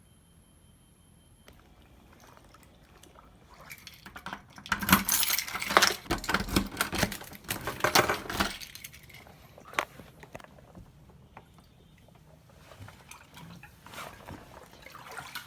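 Metal keys jangling and clinking in a dense, rattling cluster from about four to eight and a half seconds in, followed by a few scattered knocks.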